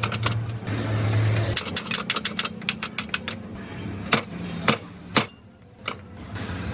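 Sharp clicks and a few knocks, with a fast run of clicks about two seconds in and a low steady hum for the first second and a half.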